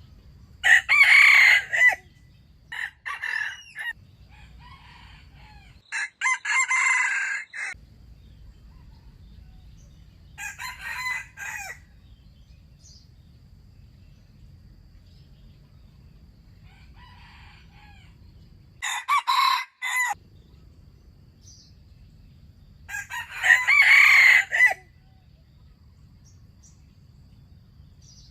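Roosters crowing again and again: about seven crows, each a second or two long, spaced several seconds apart. The loudest come near the start, about two-thirds of the way in and near the end, with quieter, more distant crows between, over a low steady rumble.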